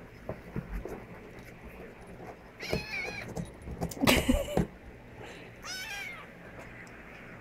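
Snowshoe kitten meowing: a high, wavering meow about two and a half seconds in and another near six seconds in. Between them, about four seconds in, there is a louder, harsh cry.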